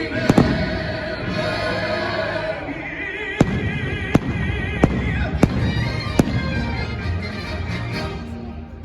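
Fireworks bursting with sharp bangs over music. There is a pair of bangs right at the start, then a steady run of single bangs roughly every 0.7 seconds through the middle, while the music carries a wavering melody.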